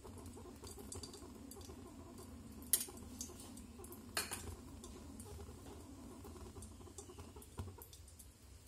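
A metal spoon clinking against a pot as ghee is spooned in: a few sharp clinks, the two loudest about a second and a half apart, over a faint steady low hum.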